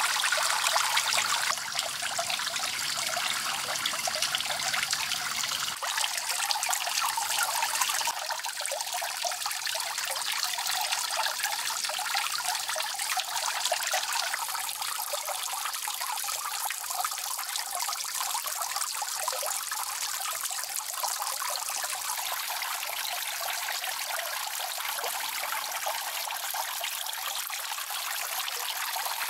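Water trickling and splashing steadily as it runs out of bamboo pipes into a small pond.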